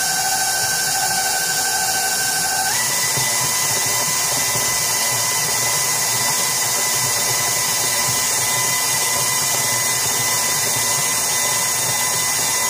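KitchenAid Professional 5 Plus stand mixer motor running steadily, its beater whipping thick soap frosting in a steel bowl; a steady whine that steps up to a higher pitch about three seconds in.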